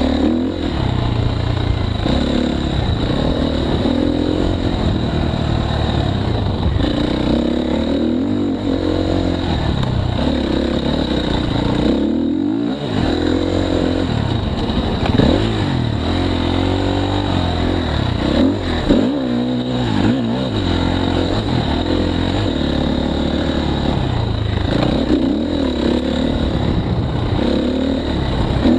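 KTM 350 XC-F dirt bike's single-cylinder four-stroke engine under way, its revs rising and falling again and again, with a couple of brief lulls off the throttle.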